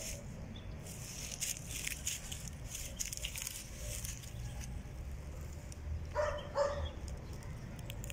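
Shar Pei puppy rolling and scuffling on grass and dry leaves, making scattered crackling rustles, with two short vocal sounds a little past six seconds in.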